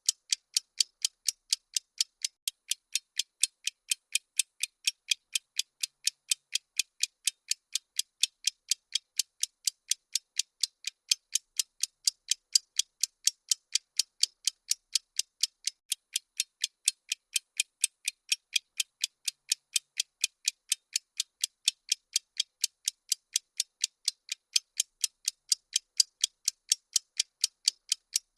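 Countdown-timer ticking sound effect: crisp clock ticks at a fast, even pace, several a second, with no pause.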